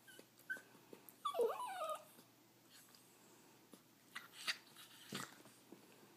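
Small dog whining and yelping in a squabble over a rawhide chew: a couple of short high whines, then a louder wavering whine about a second in. A few sharp clicks follow later.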